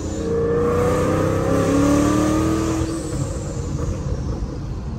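Supercharged Ford 5.0 V8 Mustang accelerating hard through an upshift: the engine's pitch climbs, drops at the gear change about a second in, climbs again, then eases off near three seconds in.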